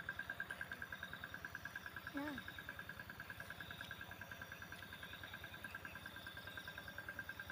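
An insect trilling steadily in a fast pulsing rhythm, about eight pulses a second, faint throughout. A brief voice sound about two seconds in.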